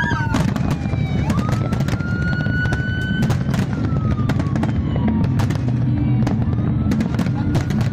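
A big fireworks display going off: a rapid, irregular run of sharp bangs and crackles from bursting shells over a dense low rumble, with long whistling tones that glide slowly down and up in pitch.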